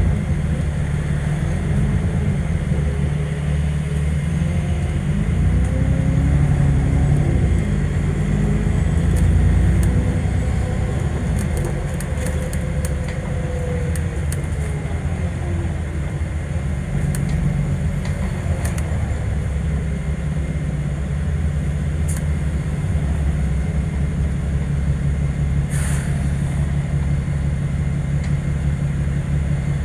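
Alexander Dennis Enviro400 MMC double-decker bus heard from inside the passenger cabin: a steady low engine drone, with a whine that rises and then falls in pitch between about a fifth and half of the way through as the bus drives along. A few short clicks and rattles come through around the middle.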